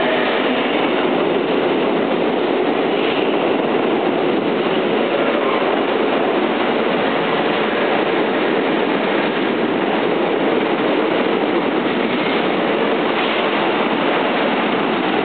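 Kintetsu 22000 series ACE and 30000 series Vista EX limited express train moving along the platform, a steady, loud running noise of wheels on rail with light clickety-clack.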